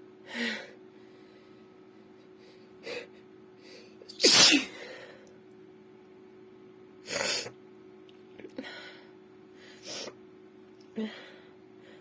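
A woman sneezing repeatedly, with quick gasping breaths between. The loudest sneeze comes about four seconds in and another strong one about seven seconds in.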